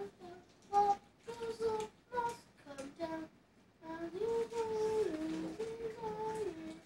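A child singing or humming a tune without clear words: short separate notes at first, then from about four seconds in a longer phrase of held notes that step up and down and end on a lower note.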